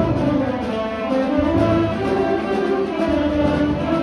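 String orchestra playing: violins, cellos and double basses bowing held notes that move from chord to chord over a strong low bass line.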